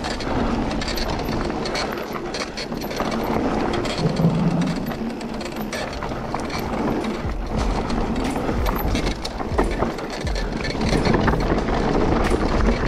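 Mountain bike descending a dirt trail: tyres rolling over dirt and stones, with the bike rattling and clicking over bumps. A deep rumble grows stronger about seven seconds in.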